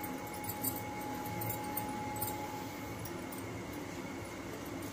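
Faint handling noise of hands pressing and rolling a soft ball of wheat-and-maida paratha dough, with a few light clicks, over a faint steady tone.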